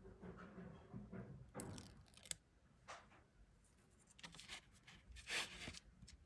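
Faint handling sounds of a small canvas's wooden stretcher frame held and turned in the hands: a few short scratchy rubs and rustles as fingers grip the wood and press on the stuck-on pads.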